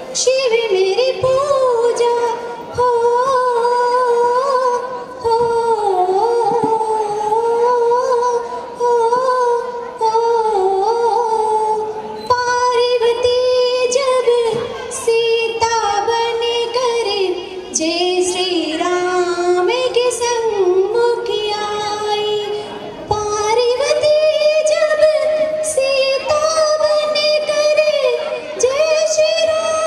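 A woman singing solo into a handheld microphone: long held, wavering notes with short breaks for breath every few seconds, the melody climbing higher about two-thirds of the way through.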